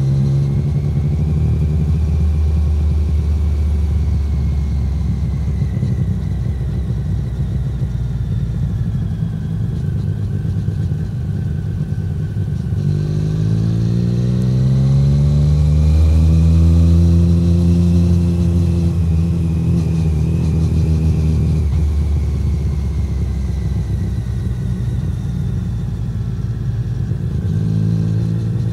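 A 2017 Triumph Street Triple 765R's inline three-cylinder engine heard through an SC Project SC1-R titanium exhaust from on board. The engine note sinks slowly as the bike rolls off, then climbs smoothly a little before halfway as it accelerates. It holds, drops back as the bike slows again, and starts to rise once more near the end.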